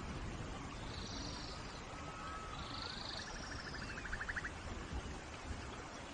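Steady rain hiss with forest animal calls over it: a few short high chirps, a thin gliding whistle, and a rapid clicking trill a little past halfway.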